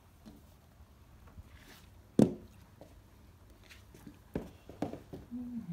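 A glass door or window being opened: one sharp clunk about two seconds in, then a few lighter knocks.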